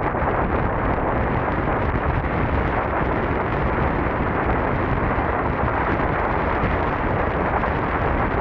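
Steady wind rush buffeting the camera microphone while riding an electric scooter at speed, drowning out any motor sound.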